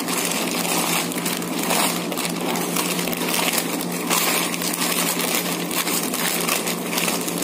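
Plastic courier mailer and its plastic wrapping crinkling and rustling continuously as they are handled and pulled at to be opened.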